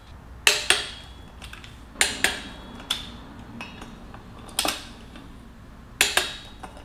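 Click-type torque wrench clicking sharply, several times and mostly in quick pairs, as the brake-rotor bolts reach their 31 foot-pound setting.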